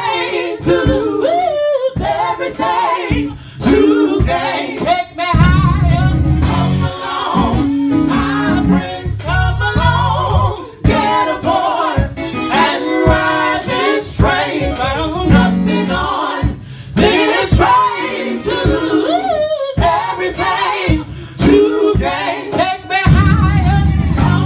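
Live gospel singing: a woman's lead voice into a microphone with a men's backing vocal group, over a sharp steady beat a little under twice a second.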